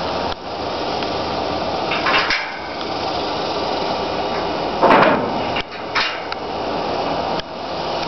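Carbureted V8 engine in a 1964 Ford F-100 running steadily at idle under the open hood, with two brief louder noises about two and five seconds in.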